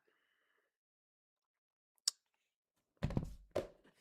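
A single sharp click about two seconds in, then a thump and a short run of knocks and rustling close to the microphone about a second later.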